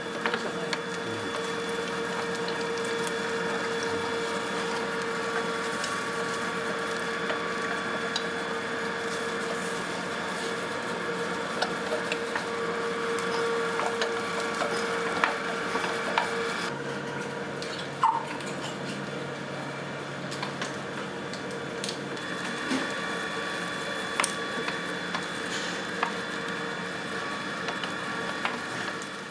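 Commercial kitchen ambience during gyoza prep: a steady hum from kitchen equipment with scattered light clicks and taps of hand work. The hum changes pitch about halfway through.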